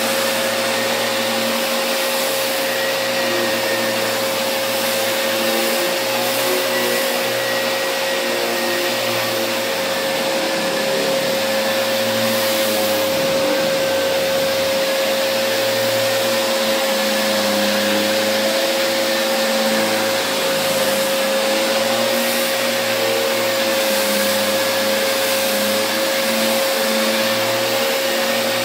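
Festool ETS 125 random orbital sander running against primed drywall with its dust extractor pulling through the hose: a steady whine with one constant tone, and low hum that shifts as the pad is pressed and moved over the wall.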